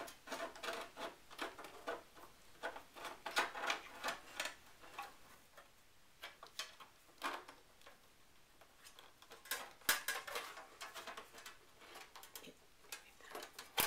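Irregular light clicks, taps and scrapes of metal parts being handled and fitted inside a Power Mac G5 case as its internal metal cover is put in.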